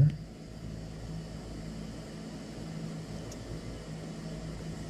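A steady low hum with an even hiss, holding level throughout, with no distinct knocks or clicks.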